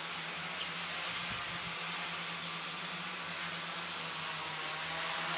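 Large electric tricopter in flight: three DT750 brushless motors turning 10x4.7 props, a steady low hum with a thin high whine above it.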